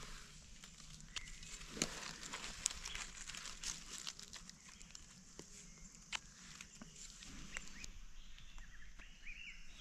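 Faint, scattered crackles and rustles of dry fallen leaves and twigs being handled, as a mushroom is cut out of the leaf litter with a knife by gloved hands.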